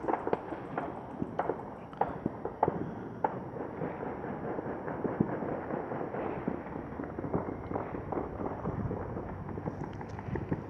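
Distant fireworks and handgun shots popping in quick, irregular succession. The pops are densest in the first few seconds, then settle into a steady crackle with scattered pops.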